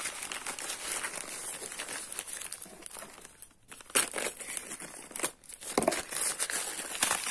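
Packaging of a boxed speaker being handled: irregular crinkling and rustling of wrapping and cardboard, with a few sharper crackles around the middle and near the end and a brief lull just before them.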